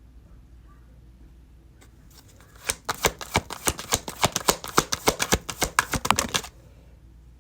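A tarot deck being shuffled by hand: a quick run of crisp card slaps and flicks, about six a second, that starts a few seconds in and stops abruptly about a second before the end.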